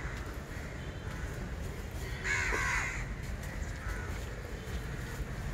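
Crows cawing: one loud caw a little over two seconds in and a fainter call near four seconds, over a steady low rumble.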